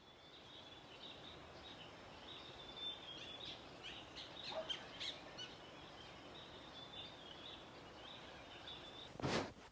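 Outdoor dawn-or-dusk ambience over forested hills: a steady background hiss with small birds chirping, busiest in the middle. A brief loud rush of noise comes just before the end.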